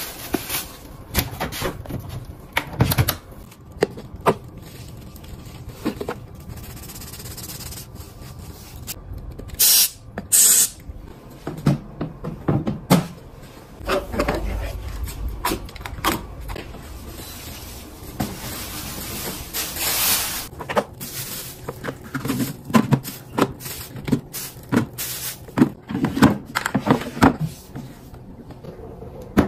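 Hands handling household items such as shoes, a plastic bag and clear plastic storage drawers: a string of clicks, knocks and scrapes with short bursts of plastic rustling.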